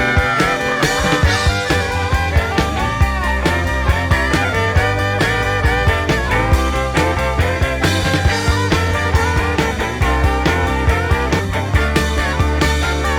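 Rock music with a steady drum beat and a prominent bass line.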